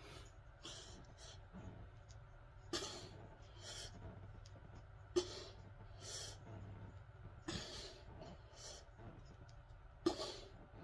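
A person breathing hard through squat reps: sharp puffs of breath about every two and a half seconds, with quieter breaths between them.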